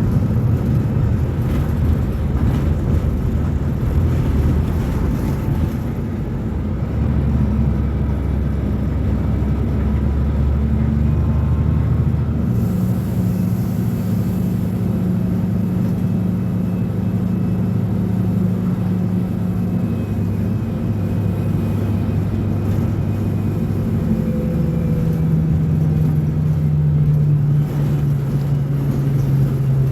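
Mercedes-Benz O500U bus's Bluetec 5 diesel engine running under way, a steady low drone whose pitch steps up and down several times as the bus speeds up and slows.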